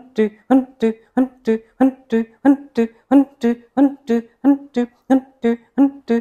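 Rapid, forceful Kapalabhati exhalations, the breath pumped out in short puffs about three times a second in a steady rhythm. Each puff carries a hummed, voiced tone along with the rush of air.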